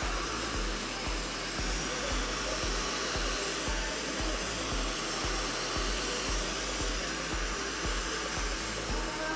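Handheld hair dryer blowing steadily, with music and a low pulsing beat underneath.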